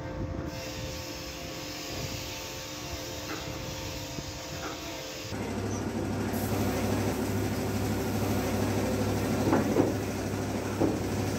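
Steady machine hum holding a few even tones. About five seconds in it switches abruptly to a louder hum with a deeper drone, with a few short sounds near the end.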